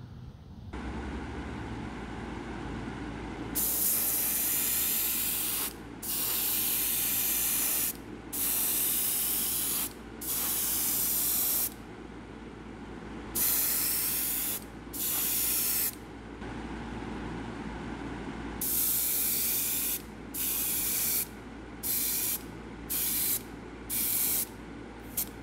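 Primer being sprayed onto a resin fishing lure in repeated hissing bursts: a few long passes of one to two seconds, then quicker short ones, about half a second each, near the end. Under the bursts runs a steady low hum.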